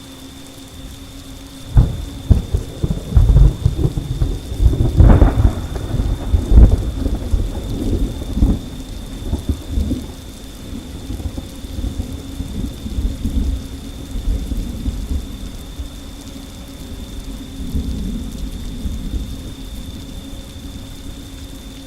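Thunderclap cracking about two seconds in and rolling on as a long, low rumble that slowly fades over the following fifteen seconds, over steady rain.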